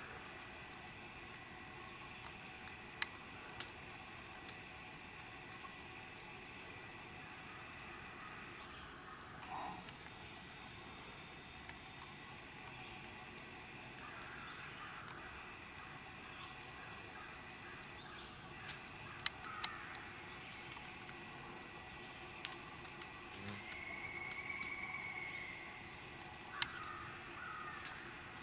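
Chorus of summer insects: a steady, high-pitched drone with a fast, even pulse, with a few faint calls and clicks over it.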